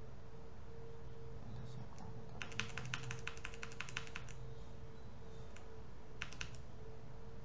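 Computer keyboard typing: a quick run of keystrokes lasting about two seconds, starting about two and a half seconds in, then a short burst of three or four keystrokes near the end, over a steady low hum.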